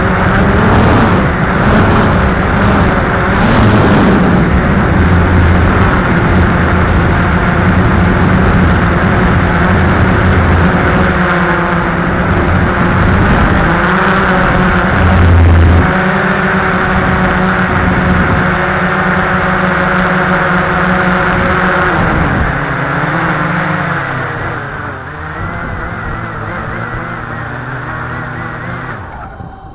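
Walkera X350 Pro quadcopter's electric motors and propellers running in a loud, steady drone, heard through the camera it carries, with shifts in pitch as it flies. About 22 seconds in the motors slow and quieten, and they stop near the end as the drone comes down to its pilot.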